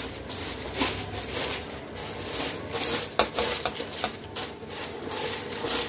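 Crisp fried poha flakes rustling and scraping on a stainless steel plate as a hand tosses and mixes them, with many irregular sharp clinks against the metal.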